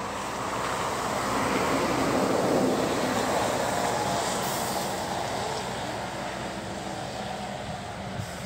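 A vehicle passing by: a broad rumble that swells over the first two or three seconds and then slowly fades away.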